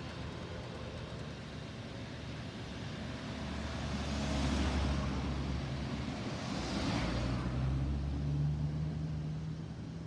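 Two cars passing close by on the road, one after the other about two seconds apart, each a rising then fading rush of engine and tyre noise. A low steady engine hum follows.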